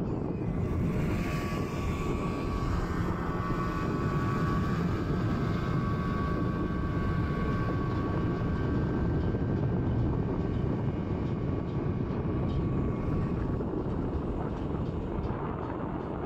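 Steady engine drone and water rush from a river launch under way. Over it, from about a second in until near the end, the higher steady whine of a speedboat's outboard motor passing close by.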